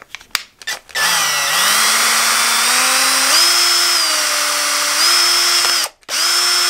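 Cordless drill with a tiny bit drilling through the plastic back plate of a Yale alarm keypad. A few clicks, then about a second in the motor starts with a whine that dips and rises in pitch as the bit bites, stops briefly near the end, and starts again.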